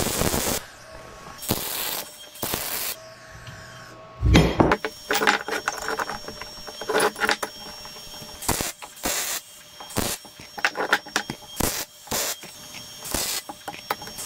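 Steel A-arm tubing and parts being handled and fitted together on a bench: irregular metallic clinks and knocks, with a heavier thump about four seconds in.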